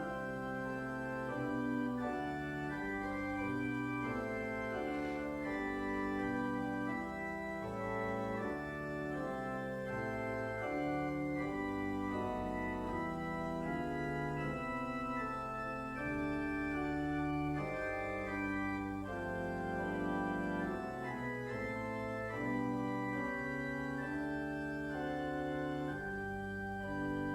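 Organ playing slow sustained chords that change every second or two, a hymn-like offertory piece.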